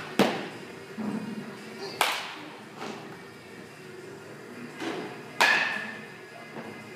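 Baseball bats striking balls in an indoor batting cage: three sharp cracks, each ringing out briefly, the last and loudest about five seconds in.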